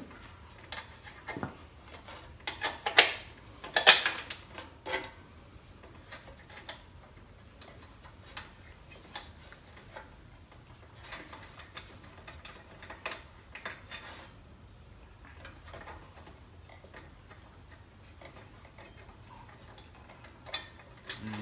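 Metal clicks and clinks of a carbide table saw blade being fitted back onto the saw's arbor by hand. A few louder clanks come a few seconds in, then light, irregular ticking.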